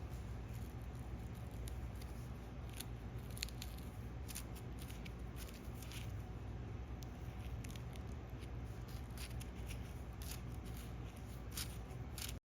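Irregular small clicks and rustles of parts or wiring being handled, over a low steady hum; the sound cuts off abruptly near the end.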